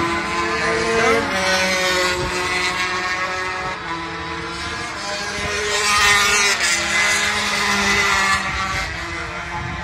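250cc racing motorcycle engines running at high revs as bikes lap the circuit, their pitch rising and falling through the gears. The sound grows loudest about six seconds in, as a bike passes close by.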